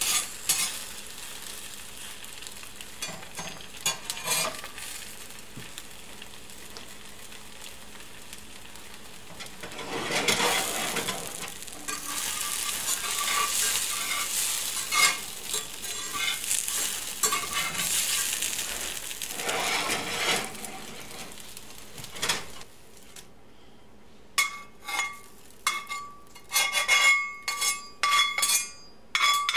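Eggs sizzling as they fry in a cast-iron skillet, the sizzle swelling for several seconds in the middle while a slotted metal spatula works under them. Near the end the sizzle drops away and a run of sharp metallic scrapes and clinks follows, from the spatula against the pan and plate as the eggs are lifted out.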